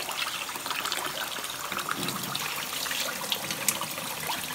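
Kitchen tap running into a pot of soaked chickpeas while a hand swishes and rubs them in the water to loosen the skins. Near the end, water pours over the pot's rim into a stainless steel sink.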